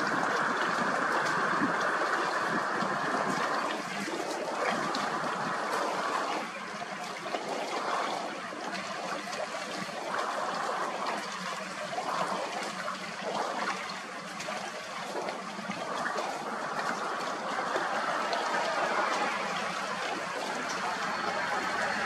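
A steady rushing noise that swells and fades over several seconds.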